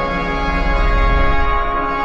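Background music of sustained, held chords, with a deep bass note swelling up about halfway through.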